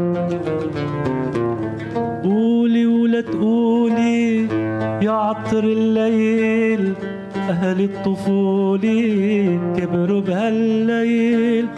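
Oud playing a quick run of plucked notes. About two seconds in, a male voice joins, singing long held notes in Arabic classical style with wavering, ornamented pitch and short breaks for breath.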